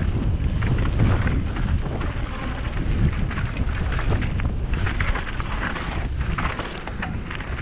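Wind buffeting a helmet-mounted camera's microphone on a fast downhill mountain-bike descent, with a continuous clatter and rattle of the bike and tyres running over a rough dirt trail.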